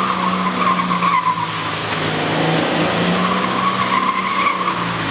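Scion FR-S's rear tyres squealing as the car slides tail-out in circles on pavement, a wavering high squeal that swells about a second in and again around four seconds. Beneath it the car's 2.0-litre flat-four boxer engine runs at steady, held revs.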